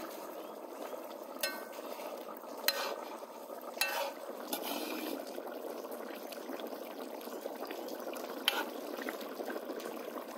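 Uzbek pilaf boiling in a large kazan over a fire: rice and broth bubbling steadily, the liquid not yet absorbed. A few sharp clicks sound over it.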